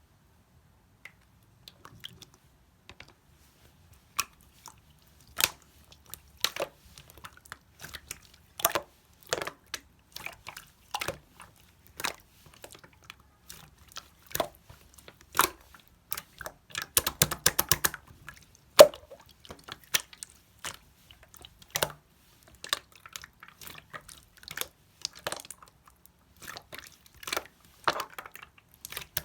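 Glitter slime being squeezed and pressed by hand, making irregular wet clicks and pops from trapped air, with a rapid run of them about seventeen seconds in.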